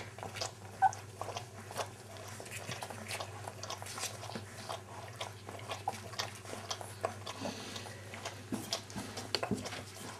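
Pets eating: many short, irregular crunching and clicking chews and bites, over a steady low hum.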